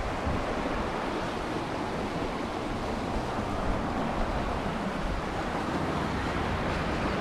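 Steady rushing roar of a river in flood, fast brown water pouring past and under a footbridge.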